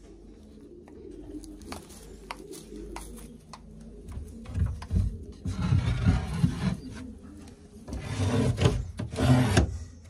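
Racing pigeons cooing softly in a loft. About four seconds in, and again near the end, two stretches of loud rustling and rubbing noise break in.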